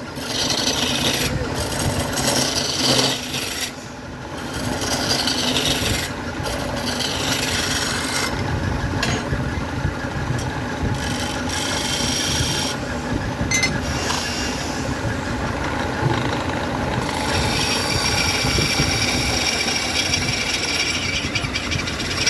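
Woodturning lathe spinning a bowl blank of glued wooden veneers while a tool scrapes against the turning wood: a continuous rasping over the motor's low hum. The scraping eases off and comes back several times as the tool is lifted and reapplied.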